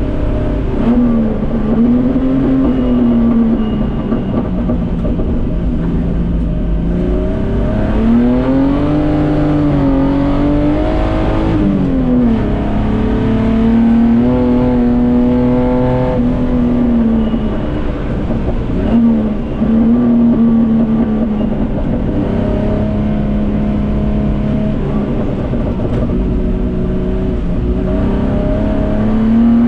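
Datsun 240K Group C race car's straight-six engine running hard, its revs climbing and falling, with sudden drops in pitch a few times as it changes gear.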